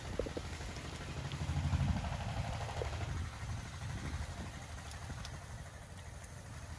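Rotary melting furnace running with a steady low rumble as it pours molten iron into a hand ladle. The rumble swells a little about two seconds in, then eases.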